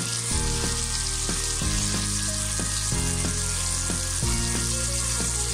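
Beef steaks sizzling steadily in butter in a frying pan.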